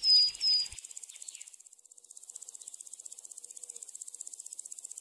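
Forest ambience: a bird's short, repeated high chirps in the first second, then insects chirring in a steady, rapid high-pitched pulse.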